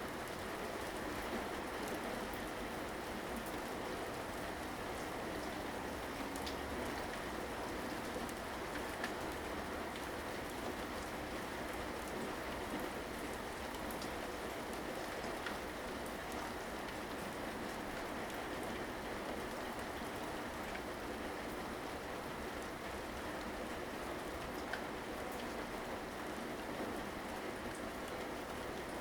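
Steady rainfall: an even hiss of rain with scattered individual drops ticking on surfaces.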